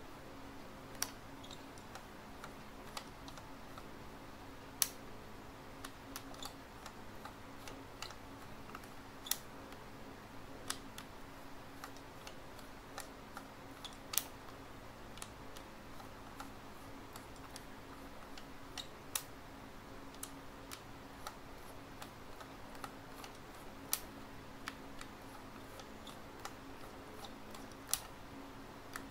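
Mechanism of a vintage Rolleicord twin-lens reflex camera clicking as its knurled side knob is turned by hand: many small irregular clicks, with a sharper, louder click about every four to five seconds.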